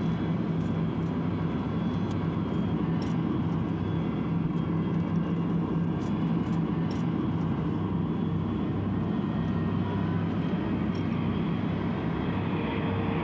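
Jet aircraft engines running on an airport apron: a steady rumble with a low hum. A steady higher tone comes in near the end.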